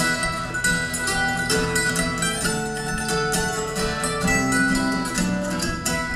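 Instrumental break of plucked string instruments, a guitar among them, playing the tune between sung verses of a folk song.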